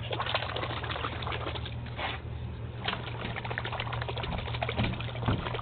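Water sloshing and crackling against a camera held underwater, with many small clicks over a steady low hum.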